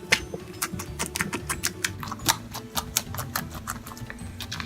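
Freshly activated clear-glue slime being squeezed and pulled by hand, giving a run of quick, irregular sticky clicks and pops.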